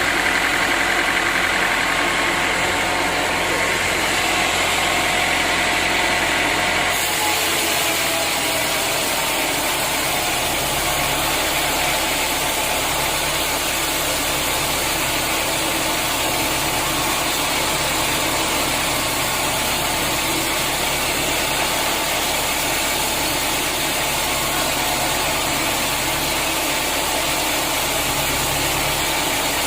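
Sawmill machinery running steadily with a constant engine-like hum. The sound changes abruptly about seven seconds in and then holds steady.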